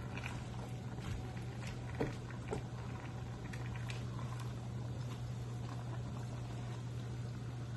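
Chayote and carrot stir-fry cooking in a pan: faint sizzling and bubbling crackles over a steady low hum, with a couple of sharper clicks about two seconds in.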